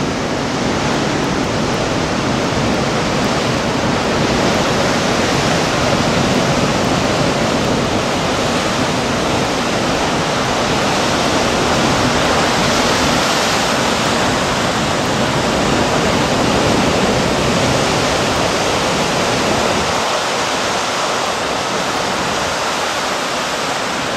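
Pacific surf breaking and washing over coastal rocks: a loud, steady rushing of water that swells gently now and then.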